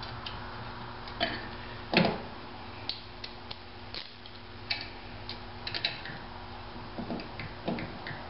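Small metallic clicks and taps of a ratchet wrench and nuts being worked onto the ring-gear bolts of a steel lawnmower flywheel, with one louder knock about two seconds in and short runs of ratchet clicks later on.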